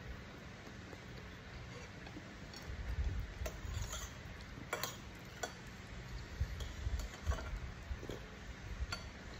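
Eating by hand from a ceramic plate: fingers and nails scrape and tap against the plate in a run of short, sharp clicks as food is gathered up, with mouth sounds as the fingers are licked near the end.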